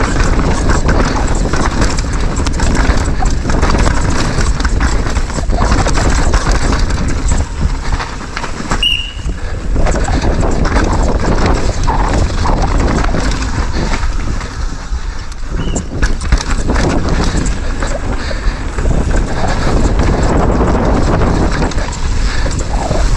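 Downhill mountain bike ridden fast over a rocky, rooty dirt trail: tyres crunching and the bike's chain and frame rattling with every hit from rocks and roots, over wind rush on the microphone.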